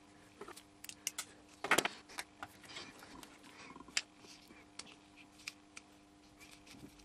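Small hand tool clicking and scraping against a potted electronics assembly being turned in the fingers: scattered light clicks, with a brief cluster of louder knocks about two seconds in. A faint steady hum runs underneath.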